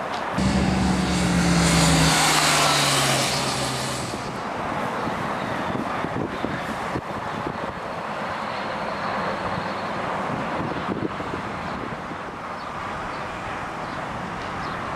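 Yamaha FZ6 Fazer S2's 600 cc inline-four engine running with the bike standing in neutral. It is louder in the first four seconds, its pitch dropping in steps, then settles to a steadier, lower sound.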